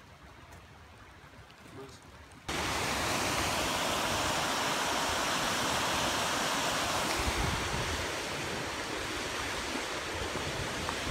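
Rushing water of a rocky woodland stream tumbling over small falls, a steady hiss that comes in suddenly about two and a half seconds in after a quiet stretch.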